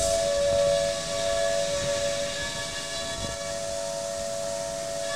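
DATRON 5-axis CNC machine's high-speed milling spindle whining steadily on two close high tones while a small tool drills holes into a part, with a steady hiss of coolant spray.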